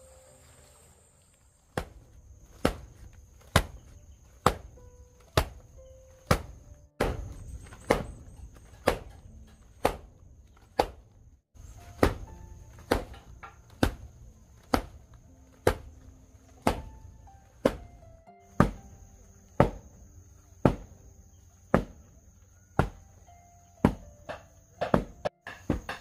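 A regular series of sharp striking blows, about one a second, from manual work on wood or bamboo, with a steady high-pitched insect chirr behind them.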